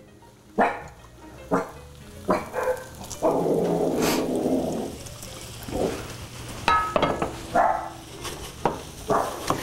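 A dog barking several times in short barks, over the sizzle of onions and flour frying in a hot skillet.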